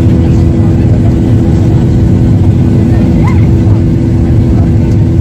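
Cabin noise of a Boeing 737-800 climbing after takeoff: the steady, loud roar of its CFM56-7B turbofan engines with a constant hum running through it, heard from a window seat beside the engine.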